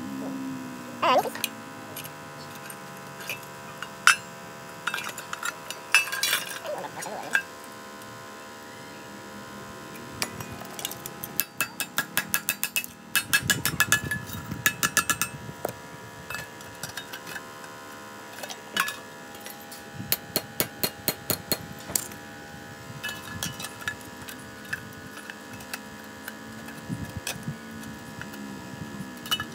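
Hand hammer striking a small steel workpiece with sharp metallic clinks: a few separate knocks at first, then quick runs of about five strikes a second, over a steady hum.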